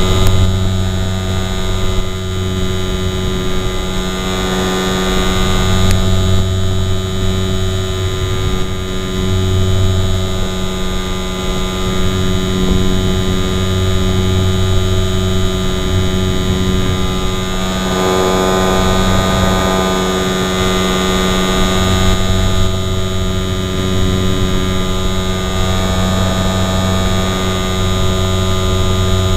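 RC airplane's motor and propeller heard through the plane's onboard camera: a steady buzzing hum throughout, its pattern shifting briefly about two-thirds of the way through.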